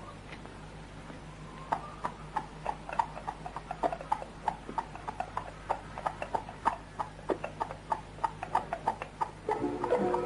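Hooves of ridden horses clip-clopping along a dirt track in an uneven beat of several steps a second, starting about two seconds in, over a steady low hum. Music comes in near the end.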